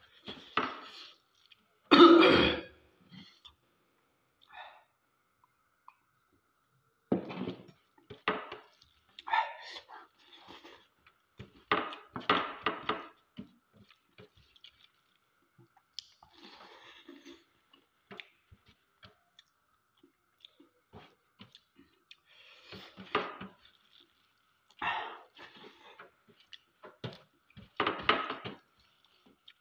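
A man eating rice with his fingers from a steel plate: chewing, mouth noises and fingers scraping rice across the plate, in short bursts every few seconds. One loud throat-clearing about two seconds in.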